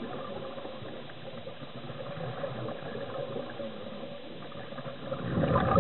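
Muffled underwater sound picked up through a camera housing: a scuba diver's bubbling, with a louder burst of exhaled bubbles near the end.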